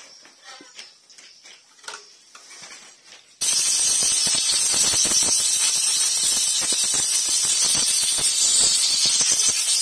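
Compressed-air blow gun hissing steadily as it blows out a motorcycle fuel pump assembly; the hiss starts suddenly about a third of the way in.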